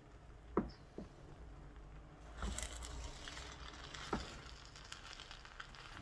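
Spoon stirring jollof rice against the bottom of a hot pot: a few knocks of the spoon on the pot, and from about two seconds in a crackling sizzle of the rice at the base. It sounds like burning but is the sign that the rice is done.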